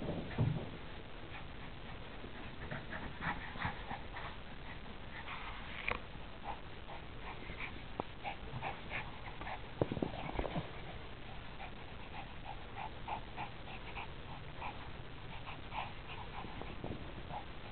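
Two Shih Tzus playing over a ball, making many short, high-pitched dog sounds, with a few sharp knocks along the way.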